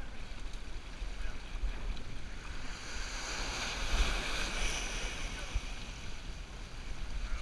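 Small waves washing and splashing over shoreline rocks, swelling to a louder hiss of surf about three to five seconds in. Wind buffets the microphone with a low rumble.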